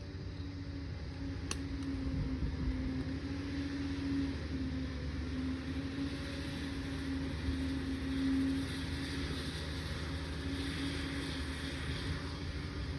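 Liebherr PR 746 crawler dozer running steadily, its diesel rumble carrying a held whine, with a single sharp tick about a second and a half in.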